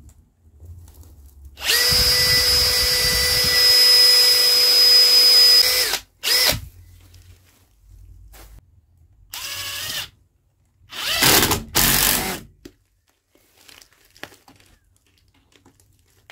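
Cordless drill running steadily for about four seconds, boring a pilot hole through a green wild cherry branch. It is followed by several shorter power-tool bursts as the screw is driven in.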